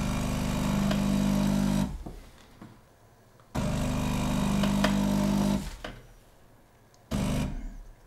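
Delonghi Dinamica Plus superautomatic espresso machine's vibration pump buzzing in pulses as it extracts a 'long' coffee: two pulses of about two seconds each, then a short one near the end. The pulsing is the machine's low-pressure brewing cycle for this recipe.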